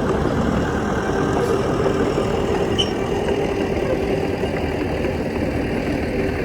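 Heavy diesel engine of earth-moving equipment running steadily at an even pitch.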